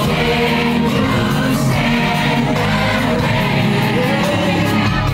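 Music over a sound system with a large crowd singing along together.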